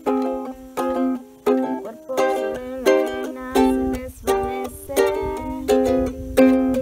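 Ukulele strummed in slow, even chords, about one strum every 0.7 seconds, each chord ringing between strums.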